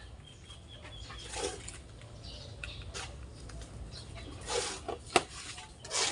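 Hand tool scraping and knocking as sand is scooped from a pile into a bucket: scattered short scrapes and knocks, the sharpest about five seconds in, with faint bird calls.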